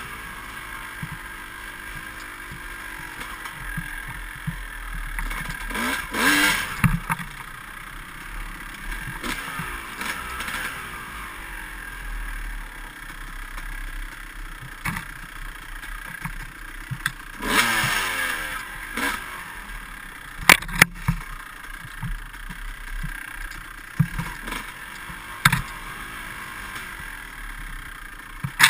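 Dirt bike engine riding a rough trail, revving up and down as the throttle opens and closes, with the loudest revs about six and seventeen seconds in. Sharp knocks and clatter from the bike over bumps, most around twenty seconds in and again at the very end.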